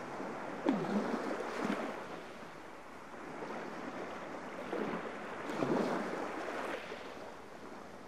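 Small waves of the Baltic Sea lapping on a sandy beach, a soft wash that swells and ebbs a few times.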